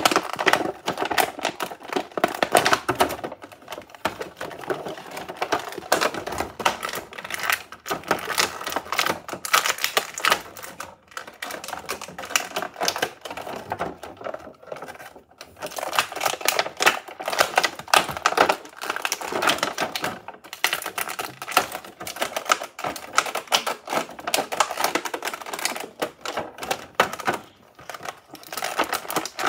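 Stiff clear plastic toy packaging being handled and pried open by hand: continuous rapid crackling and clicking, with a few brief pauses.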